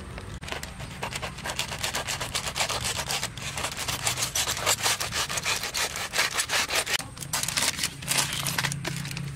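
A knife sawing through crumpled aluminium foil and the foil crinkling as a foil parcel is cut and pulled open: a dense run of rapid scratchy, crackling strokes, with a short lull about seven seconds in.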